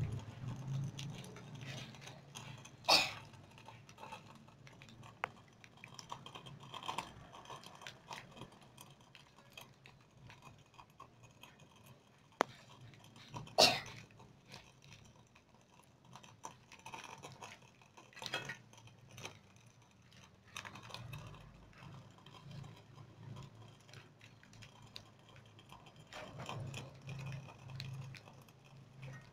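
Light, uneven crackling of martabak parcels frying in oil in an aluminium wok, with scattered small clicks and two sharp knocks of a metal spatula against the wok, about three seconds in and again near the middle.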